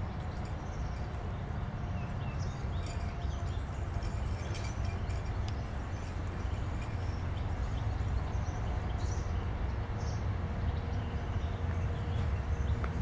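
Steady low outdoor rumble with faint scattered ticks and rustles as a puppy chews on garden plants in the grass.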